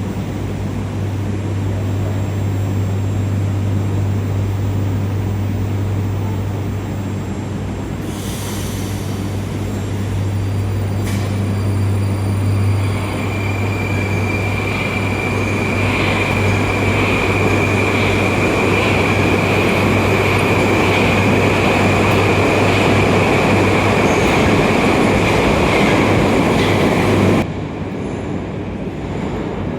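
Moscow Metro train running through a station, its loud rumble building steadily. A steady high wheel squeal sets in about a third of the way through, with faint regular clicks about once a second. The sound cuts off suddenly near the end.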